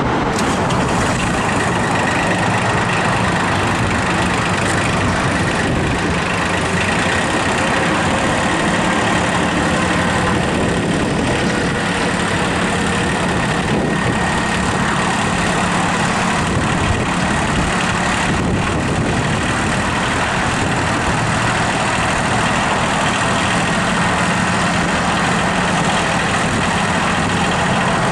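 Kioti 3052 compact tractor's diesel engine running steadily at a constant speed, with a steady high whine over it.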